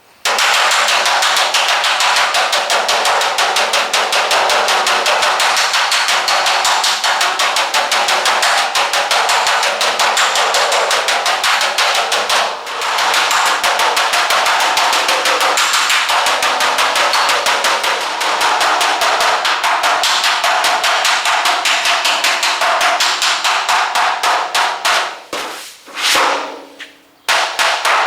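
Body hammer rapidly tapping out dents in a car hood's sheet metal against a dolly, a long fast run of light strikes. It breaks off briefly about halfway through and again near the end.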